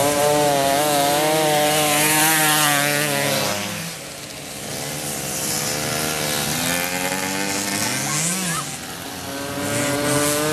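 Several Mobylette mopeds' small two-stroke engines racing at high revs, their pitches overlapping. The sound drops about four seconds in, and a moped passes near the end with its pitch rising and then falling.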